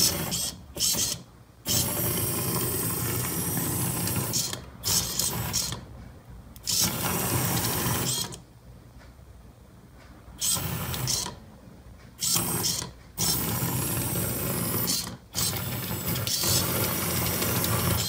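Small geared motors of a metal tracked robot running its chain-link metal tracks, a mechanical whirring clatter that comes in stop-start runs from under a second to a few seconds long, with short pauses between.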